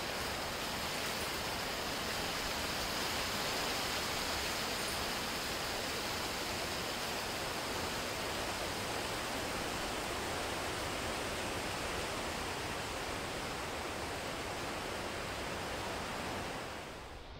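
Steady, even rushing noise with no distinct events, dropping away right at the end.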